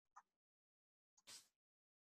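Near silence: room tone, broken by two faint short noises, one just after the start and one just over a second in.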